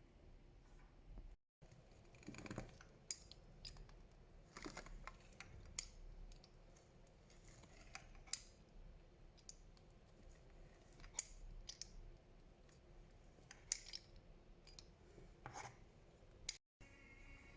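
Sharp snipping clicks, one every two to three seconds, with quieter rustling and handling sounds between them.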